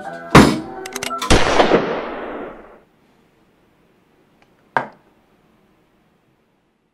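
Two loud sharp bangs about a second apart, the second trailing off over about a second and a half, then a single short sharp knock near five seconds in.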